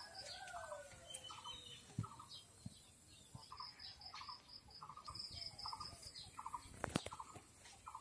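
Faint bird chirping: short chirps repeated about every half second, with high rapid trills between them and a falling call in the first second. A few sharp clicks cut through, the loudest near the end.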